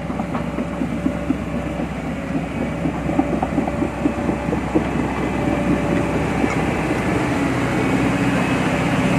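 Hydraulic excavator's diesel engine running steadily, with scattered light clanks, growing louder over the last few seconds.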